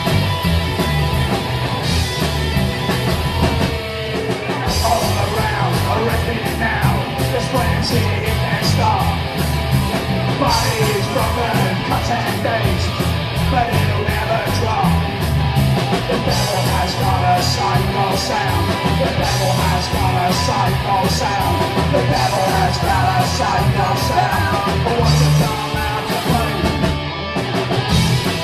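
Live psychobilly band playing: slapped upright double bass, electric guitar and a drum kit.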